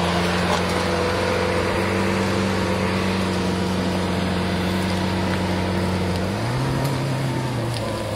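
Lamborghini Aventador's V12 idling steadily. About six seconds in the car pulls away gently and the engine note steps up a little.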